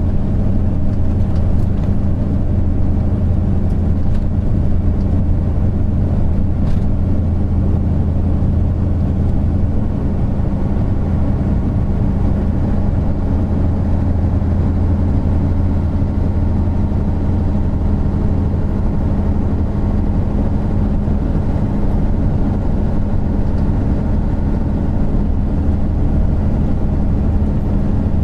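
Isuzu Gala III coach's 12PE1 V12 diesel engine running under way: a steady low drone with an unchanging pitch throughout.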